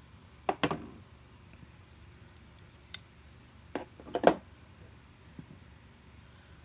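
Folding pocket knives being handled and moved on a silicone work mat: a few short, separate clicks and knocks, the loudest about four seconds in.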